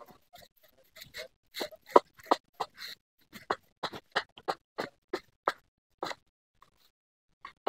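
Machete blade slicing through a peeled bamboo shoot onto a small wooden block: a quick run of short crisp cuts, about three a second, with a short pause near the end before another cut.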